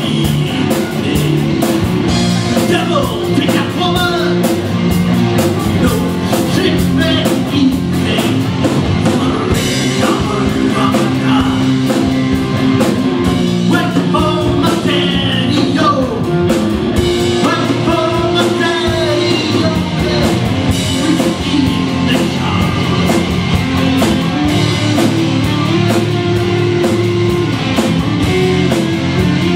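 A rock band playing live on electric guitars, electric bass and drum kit, with a steady drum beat.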